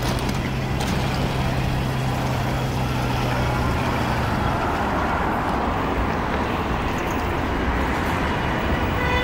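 Road traffic on a city street: a steady rumble of passing vehicles, with a low engine hum that stops about four seconds in and the noise of a passing vehicle swelling around the middle.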